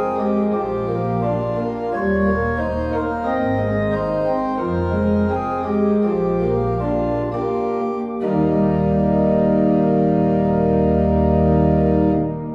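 Church organ playing moving chords over a bass line that changes every second or so; about eight seconds in, a full chord is held for about four seconds, then released near the end, with reverberation dying away.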